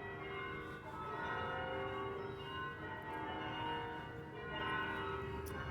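Church bells ringing, several bells of different pitches sounding together and ringing on.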